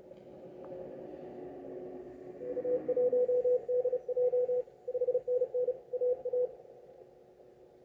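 Morse code (CW) on an amateur radio receiver: a single pitched tone keyed in dots and dashes for about four seconds, starting about two and a half seconds in, over receiver hiss and a fainter, lower steady tone.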